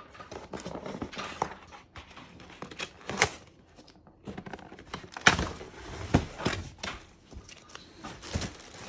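Cardboard shipping box handled and opened by hand: irregular knocks, scrapes and flapping of cardboard, the loudest a sharp knock about five seconds in.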